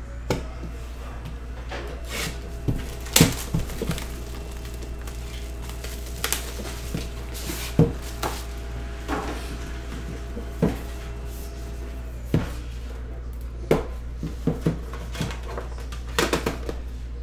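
Handling and opening a trading-card hobby box: a series of irregular clicks, knocks and scrapes as the cardboard outer box is opened and the black metal Panini Immaculate tin inside is set down, with a cluster near the end as the tin's lid is lifted off. A low steady hum runs underneath.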